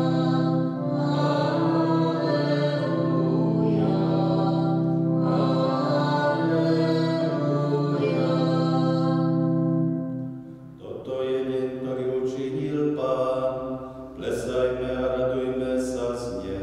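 Church organ holding sustained chords, giving way about eleven seconds in to a single voice singing a liturgical chant over a lighter accompaniment.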